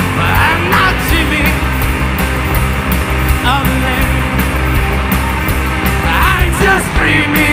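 A live rock band playing: electric guitars and a drum kit with a steady cymbal beat, with a voice singing a few short phrases.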